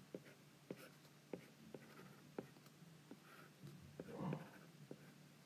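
Faint taps and light scratching of a stylus on a tablet screen while drawing, a small click every half second or so. A brief soft sound, louder than the taps, about four seconds in.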